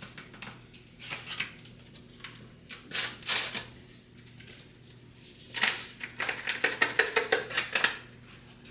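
A whisk clinking against the inside of a crock pot, mixing au jus gravy powder into water. Scattered clinks and rustles come first, then a fast run of clicks, about five or six a second, in the last few seconds.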